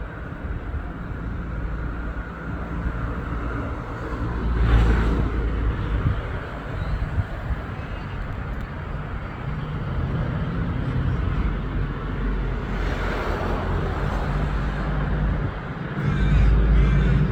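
Road traffic noise: a steady low rumble of passing vehicles, swelling as cars go by about four to five seconds in and again around thirteen seconds.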